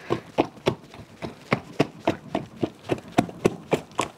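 Lard being beaten by hand in a plastic bowl: wet slaps at a steady rhythm of about four a second. The lard is being whipped so the tamales come out soft and fluffy.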